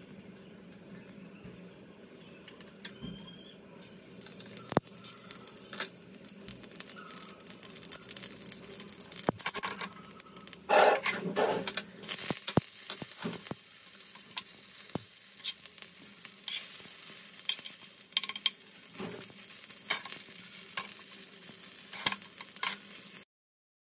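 Black mustard and cumin seeds sizzling and popping in hot oil in a steel pan as a tadka is tempered; the crackle starts about four seconds in. A louder burst of sizzling comes about halfway through as curry leaves are dropped into the oil, then the popping carries on until the sound cuts off just before the end.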